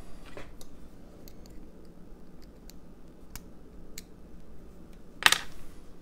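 Scattered light metallic ticks and clicks of a Mul-T-Lock lock cylinder and small picking tools being handled, with one louder click about five seconds in.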